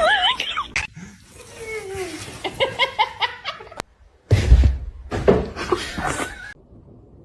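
People laughing, across several short cuts with brief gaps between them.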